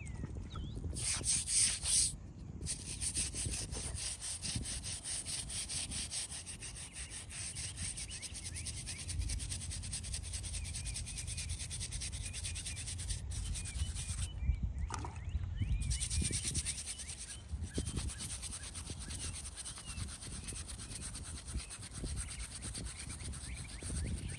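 Fast back-and-forth scrubbing of a small hand tool on the stone of a headstone: a steady rasping rub, broken by short pauses about two seconds in and again about fourteen seconds in.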